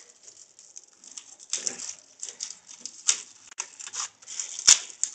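Plastic bubble wrap around a small pump crinkling and rustling in irregular bursts as it is handled and unwrapped, with one sharp click about four and a half seconds in.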